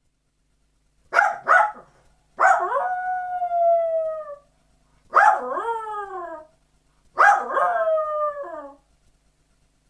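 Small white long-haired dog howling: two short yips about a second in, then three long howls, each sliding down in pitch.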